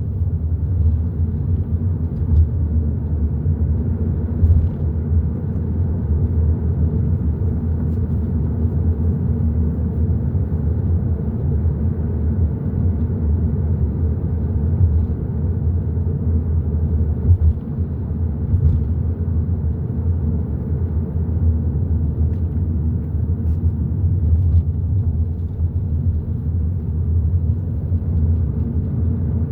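Hyundai i30 N Line driving at a steady pace: a continuous low rumble of road and engine noise.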